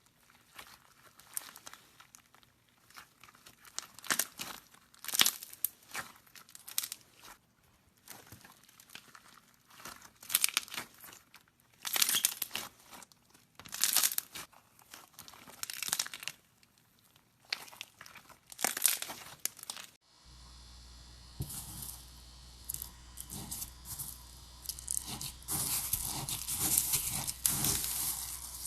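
Slime being pressed and squished, crackling and popping in bursts every second or two. About two-thirds of the way through it switches to another clip, where a steady low hum sits under denser, continuous crackling.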